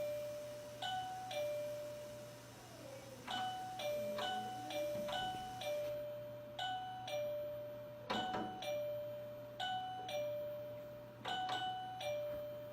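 Two-tone doorbell chime ringing ding-dong, a higher note then a lower one, over and over every second or two, as if the button is pressed repeatedly.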